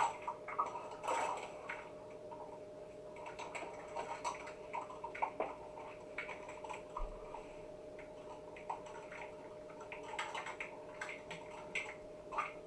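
Light, scattered clicks and taps of plastic measuring spoons and small containers being handled on a countertop, over a faint steady hum.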